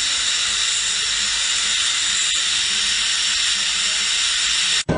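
Electric nail drill running steadily: a thin high whine over a hiss. It cuts off suddenly near the end.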